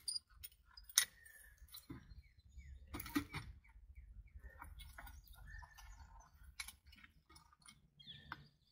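Scattered light clicks and metal clinks as pipe fittings are handled and fitted onto a pipeline valve, with a few faint bird chirps.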